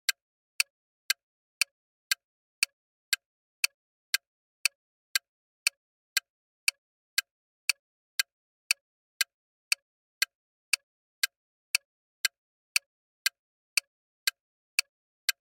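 Bomb timer ticking: sharp, short ticks at an even pace of about two a second, with silence between them.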